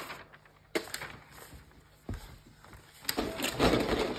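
A paper-wrapped laptop handled against its cardboard box: a few light knocks and short rustles, then louder paper rustling about three seconds in as the wrap is pulled off.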